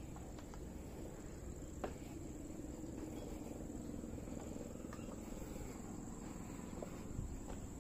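Quiet outdoor ambience: a steady high-pitched drone over a low rumble, with a few faint clicks.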